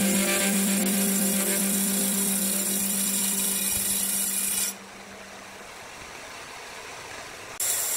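Horizontal band sawmill blade running steadily through a large hardwood log, with a sustained hum under the cutting noise. About halfway through, the sound turns quieter and duller, and it comes back to full strength just before the end.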